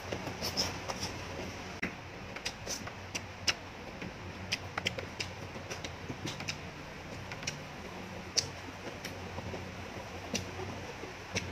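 Close-miked mouth noises of someone chewing noodles: sharp wet clicks and smacks at an irregular pace, over a steady low hum.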